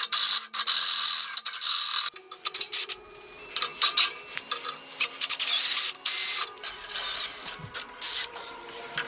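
Electric drill boring into steel plate in short stop-start runs, the bit cutting with a high-pitched grinding noise and a few brief squeals.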